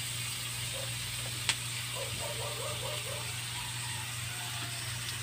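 Diced chicken, onion and garlic frying in a wok with a low, steady sizzle over a constant hum. A metal spatula clicks once against the wok about one and a half seconds in.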